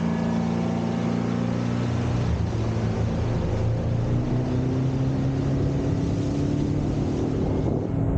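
Boat outboard motor running under way, its pitch dipping a little about two seconds in and then climbing slowly.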